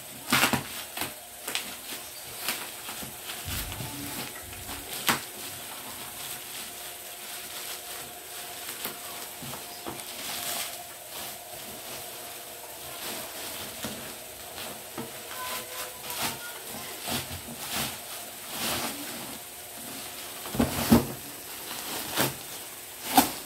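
Bubble wrap and plastic packaging rustling and crinkling as it is handled and pulled off a box, with many irregular sharp crackles.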